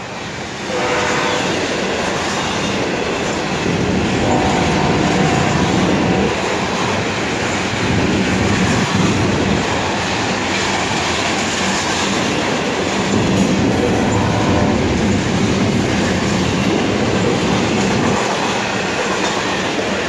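Florida East Coast Railway intermodal freight train's double-stack container cars rolling past close by: a steady, loud rumble and rattle of steel wheels on the rails. A faint squeal rises briefly about four seconds in and again around fourteen seconds.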